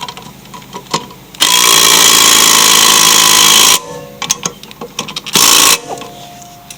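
Impact wrench running nuts down with a hammering rattle: one burst of about two seconds, then a short burst about five seconds in, with light clicks of handling between.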